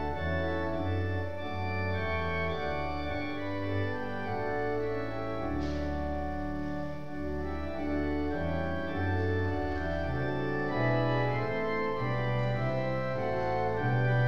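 Church organ playing a hymn tune in full sustained chords that change about once a second over a moving bass line.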